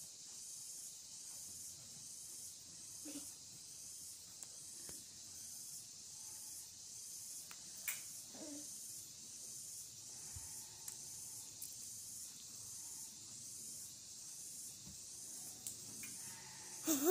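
Steady high hiss with a faint regular pulsing. A few faint brief sounds come through a few seconds in and about halfway.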